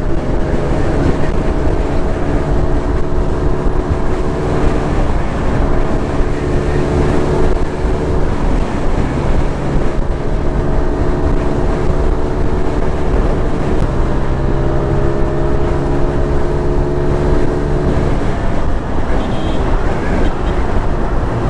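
Motorcycle engine running at road speed with heavy wind noise on the microphone; the engine note climbs slowly and drops back several times, roughly every four to five seconds.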